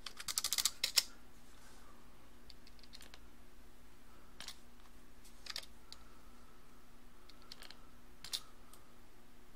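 Computer keyboard keystrokes: a quick run of typing in the first second, then a few single clicks spaced a second or more apart, over a faint steady hum.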